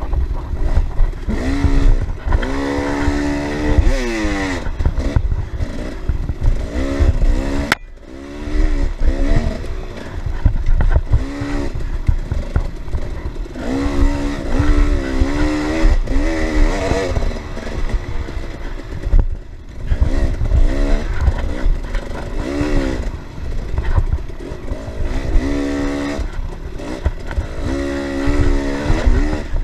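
Off-road dirt bike engine revving hard through the gears, its pitch climbing and dropping again and again as the throttle is worked, over a steady rattle of the bike over rough ground. A single sharp knock about eight seconds in, where the engine briefly drops off.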